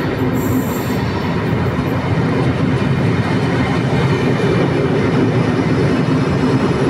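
Trenord double-deck electric commuter train running into an underground station platform. Its wheels and running gear give a steady rumble that slowly grows louder as the carriages pass close by.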